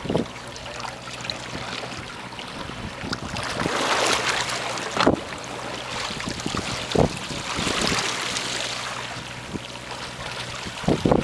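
Sea water sloshing and lapping against a boat's hull, with wind on the microphone; the wash swells twice, and a few short thumps stand out.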